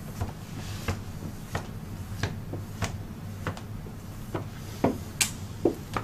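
A small hand-held pad rubbed back and forth over the vinyl-wrapped surface of a fridge door, making short squeaks and taps about every two-thirds of a second, with a few louder ones near the end, over a low steady hum.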